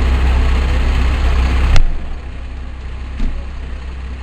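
Fire engine's diesel idling with a steady low rumble. About two seconds in, a sharp click and the whole sound drops suddenly quieter while the idle goes on. A light knock follows a little later.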